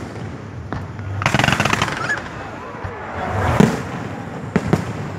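Aerial fireworks going off: several sharp bangs of shells bursting, with a stretch of dense crackling about a second in.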